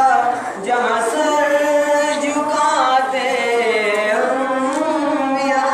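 A male voice singing a naat, a devotional song in praise of the Prophet Muhammad, unaccompanied, in long held notes that slide and waver in pitch, with a brief breath about half a second in.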